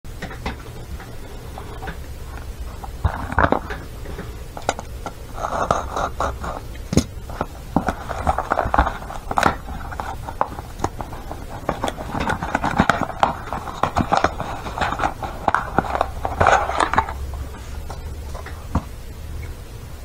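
A small cardboard box being opened and its packaging unpacked by hand: stretches of rubbing and sliding of cardboard and paper, broken by many sharp clicks and taps.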